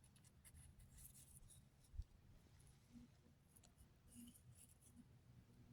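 Near silence with faint, scattered scratching and light ticks, and a soft thump about two seconds in.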